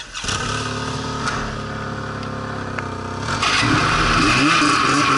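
Snowmobile engine running steadily at low speed. About three and a half seconds in it gets louder as the sled speeds up, with its pitch rising and falling with the throttle and a rushing hiss over it.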